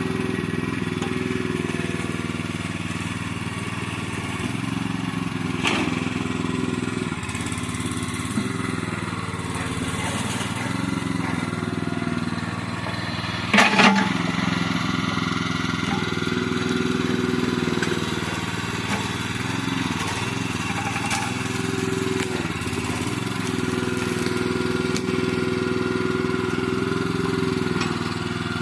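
Small gasoline engine of a towable backhoe running under changing hydraulic load, its note sagging and recovering several times as the arm is worked. A single sharp knock about halfway through.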